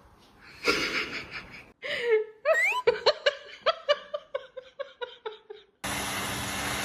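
A person laughing hard: a run of quick, high-pitched bursts, about three a second, that fade away.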